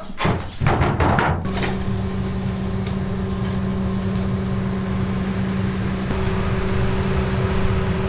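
A few clattering knocks from a wire scoop lifting boiled rice balls, then an electric standing fan running with a steady motor hum and a low uneven rumble beneath.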